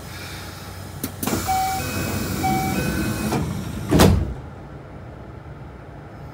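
Kintetsu 5200-series train's passenger doors closing: a click about a second in, then a loud hiss of air with a repeated beeping door chime, ending in a loud thump about four seconds in as the doors shut.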